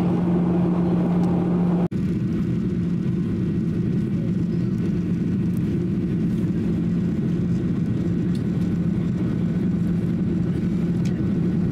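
Steady cabin noise inside a Boeing 737-800 on its approach: the drone of its CFM56 turbofan engines and rushing airflow, with a low hum. The sound cuts out for an instant about two seconds in.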